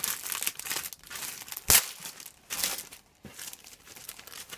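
Packaging being opened by hand: irregular crinkling and rustling of packing material, with one sharp, louder rustle about one and a half seconds in.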